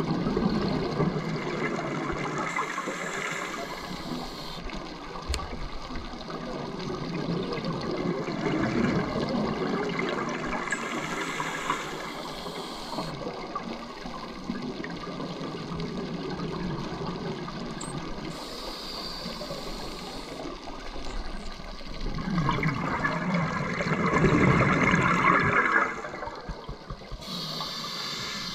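Scuba diver breathing through a regulator underwater: long bursts of bubbling exhaled air alternating with short hissing inhalations, one breath cycle roughly every eight seconds.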